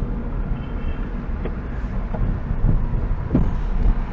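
Steady low rumble of a Hyundai car's engine and tyres heard from inside the cabin while driving in city traffic, with a few low thumps near the end.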